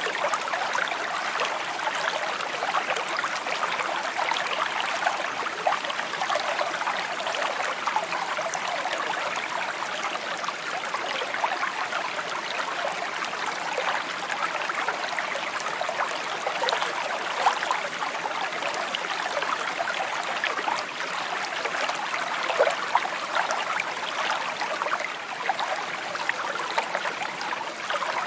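Shallow stream babbling and trickling steadily over stones, a continuous bright gurgle with fine splashy flickers.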